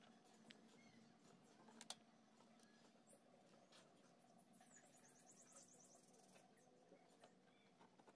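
Near silence: faint scattered clicks over a low steady hum.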